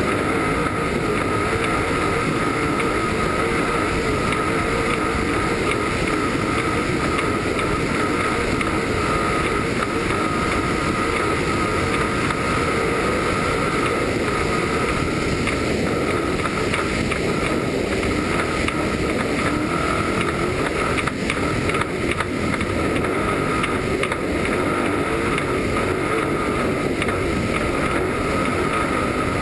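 Desert-racing trophy truck running at speed: a steady engine drone with a constant high whine, mixed with heavy wind rush on the hood-mounted camera's microphone.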